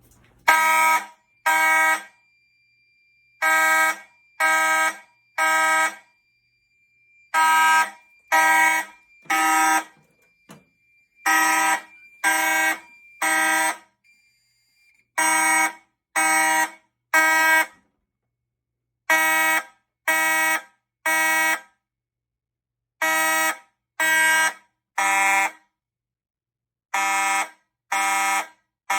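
Fire alarm horns, a Federal Signal 450D horn and a Simplex 4903-9215 horn-strobe, sounding the temporal-three (code 3) evacuation pattern after a pull station has been pulled: three blasts of about half a second each, a second apart, then a pause of about a second and a half, over and over.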